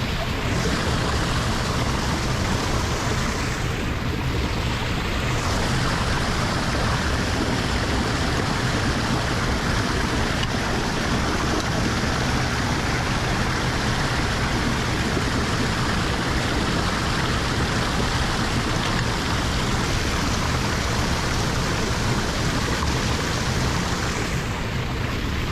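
Water rushing steadily down a lake drain.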